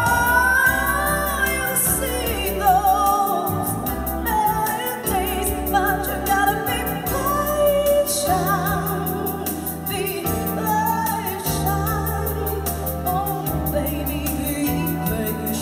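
A woman singing a slow song with vibrato into a microphone, accompanied by an electronic keyboard playing sustained bass notes over a steady beat.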